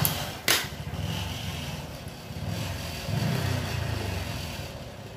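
A spring-loaded lancing device clicks twice, about half a second apart, as a fingertip is pricked for a blood-glucose test. A motor vehicle's engine then runs in the background, swelling twice and fading near the end.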